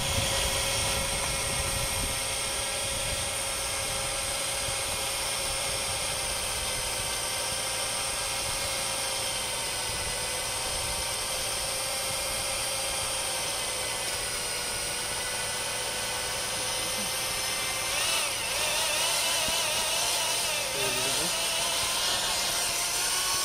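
Handheld electric paddle mixer running steadily, its motor whining at a constant pitch as the paddle stirs cement grout (SikaGrout) in a plastic bucket. About three-quarters of the way through, the motor's pitch starts to waver up and down.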